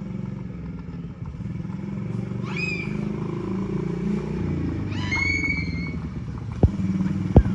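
Small 110cc ATV's single-cylinder four-stroke engine running as the quad is ridden closer, growing louder. Two short high calls rise and then hold, a few seconds apart. Two sharp clicks come near the end.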